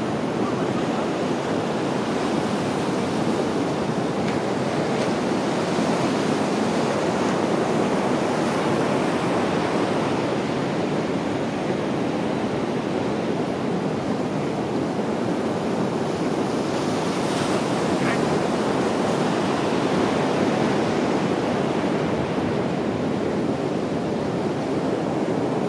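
Ocean surf breaking and washing ashore in a steady, even rush.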